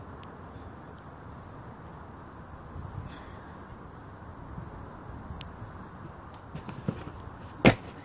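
Outdoor background hiss with a few soft knocks, then one loud thump near the end: a gymnast landing on a folding foam exercise mat laid on the grass.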